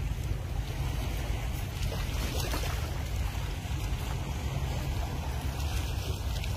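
Steady wind rumble on the microphone, over an even hiss of surf on a pebble beach.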